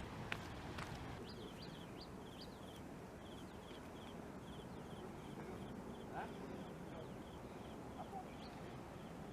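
Faint, even run of short high chirps, about three a second, from a small calling animal, over a low outdoor rumble. A couple of sharp clicks come at the very start.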